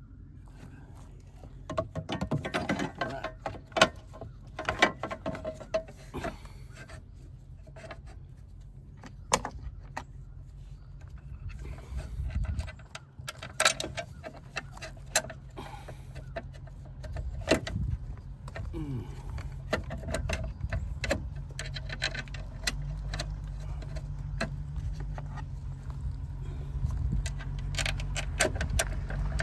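Irregular metallic clicks, clinks and rattles of tools and parts being handled, over a steady low hum that grows louder near the end.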